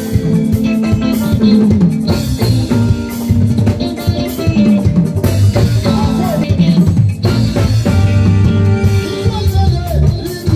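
Live band music with a steady drum kit beat under held instrumental notes.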